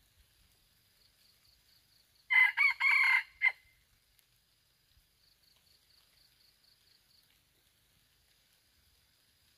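A red junglefowl rooster crows once, about two seconds in: a single crow of a little over a second, broken into several parts and ending in a short clipped note.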